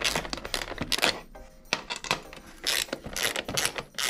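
A 10 mm spanner working nuts loose, with a run of irregular metal clicks and clinks.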